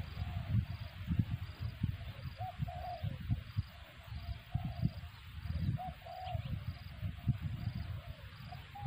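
Spotted dove cooing in short repeated phrases of low notes, over an irregular low rumble on the microphone.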